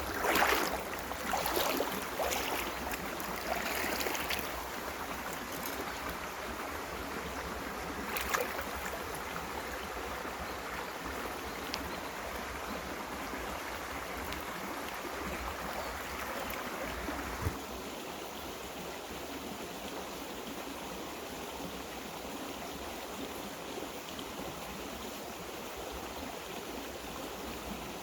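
Mountain stream water running over rocks, a steady rushing, with a few short sharp sounds in the first four seconds and one about eight seconds in. The rushing gets a little quieter about two-thirds of the way through.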